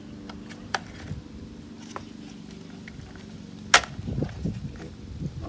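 Hard plastic seat-control trim panel being pushed into place on a car seat's side: a few light clicks, then one loud sharp snap nearly four seconds in as a clip seats. A steady low hum runs underneath.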